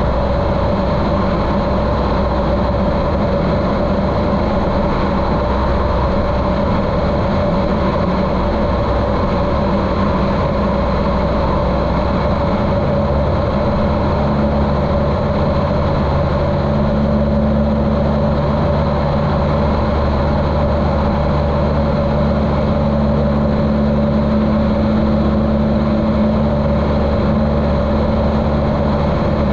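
A 1973 Cessna 150L's Continental O-200 four-cylinder engine running steadily in flight, heard muffled through a GoPro's waterproof case. The low notes of the drone shift pitch about halfway through.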